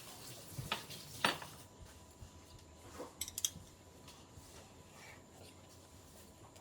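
A few light clicks and taps of eating utensils against a dish, the loudest about a second in and a small cluster near the middle.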